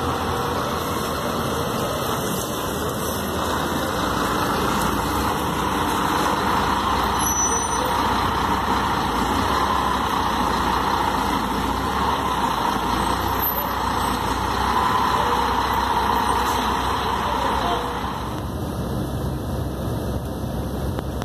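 Busscar coach's diesel engine running steadily as the coach manoeuvres slowly. A little before the end the sound cuts to a quieter, duller engine hum heard inside the coach's passenger cabin.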